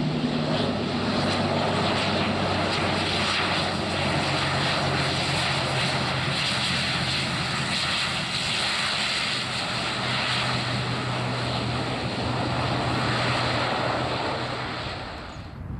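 ATR 72 twin-turboprop running loudly on the runway, its propellers giving a steady low hum under the engine noise. The sound cuts off suddenly near the end.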